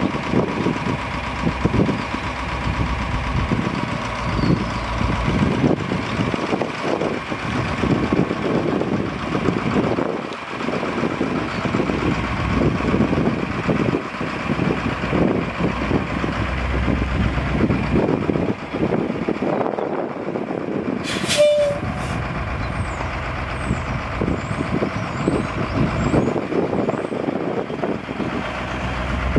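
The Detroit Diesel 8.2-litre V8 diesel engine of a 1983 Ford LN700 truck running steadily, with a brief sharp noise about two-thirds of the way through.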